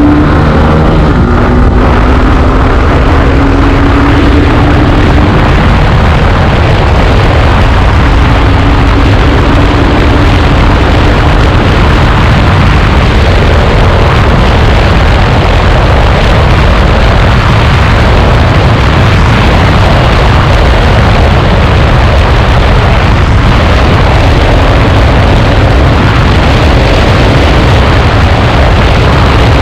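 Hero Xtreme 160R's single-cylinder engine pulling hard during a top-speed run, its pitch rising for the first few seconds, then held near top speed under a loud, steady rushing and rumbling noise that overloads the recording.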